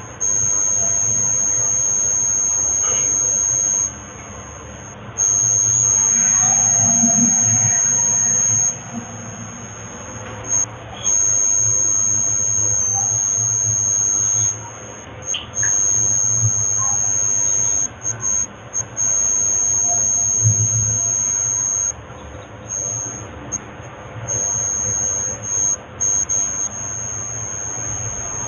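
A steady, high-pitched electronic whine, the loudest sound here, that cuts in and out irregularly in stretches of one to several seconds, over a faint low hum.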